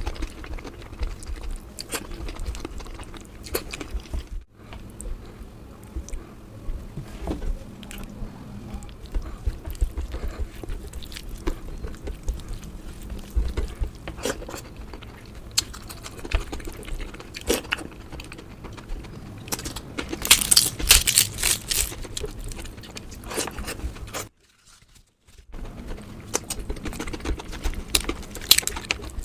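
Close-up eating sounds: chewing and mouth sounds with frequent small clinks and taps of a spoon on a plate. About twenty seconds in comes a dense run of sharper clinks and crunches, and near the end there is a brief drop to silence.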